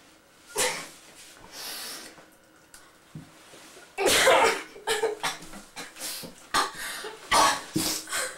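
A person coughing and sneezing: a few soft breathy huffs in the first two seconds, then a run of louder short bursts from about four seconds in.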